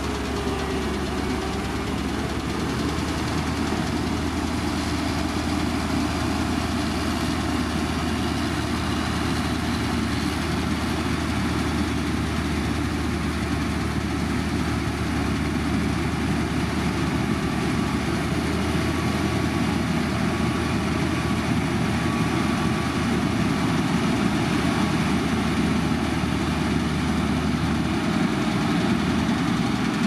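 Diesel engines of heavy road-building machinery running steadily, a continuous low engine drone with no let-up. A low hum under it drops away about two seconds before the end.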